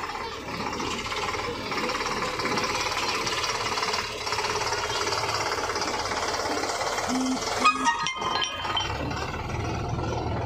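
Eicher 548 tractor's diesel engine running steadily, with a quick run of sharp metallic clanks from the tractor and trailer about eight seconds in. After the clanks, a deeper low engine rumble comes up.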